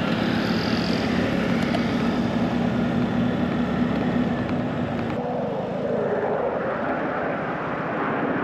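A vehicle engine running steadily, with a constant hum and wind-like noise. About five seconds in, the hum changes and its pitch slides up and down.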